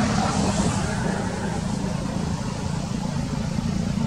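A motor vehicle engine running steadily, a low hum.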